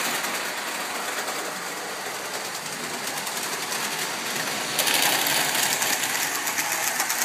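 Model train running on the layout track: a small electric motor whirring with a fast, steady clatter of wheels on rail, louder from about five seconds in.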